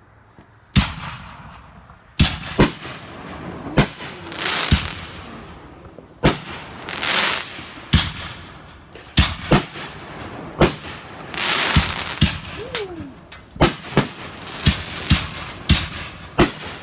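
Fireworks going off in quick succession: about twenty sharp bangs, loosely spaced, with hissing crackle and a few brief whistles between them. The first bang comes just under a second in.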